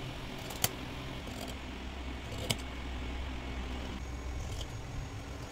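Large tailor's scissors cutting through brocade fabric, the blades closing with a couple of sharp clicks, about half a second in and again about two and a half seconds in, over a steady low hum.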